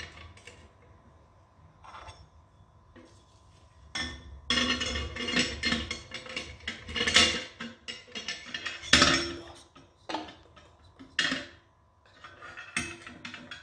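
Metal jet-assembly stages of a diffusion pump clinking and scraping against each other and the metal pump casing as they are fitted inside it. The clanks start about four seconds in and come in a busy run, loudest twice in the middle.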